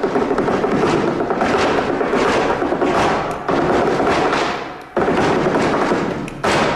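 Flamenco zapateado: a dancer's shoes drumming on a wooden stage in fast, continuous rolls of strikes, breaking off briefly and starting again sharply about five seconds in.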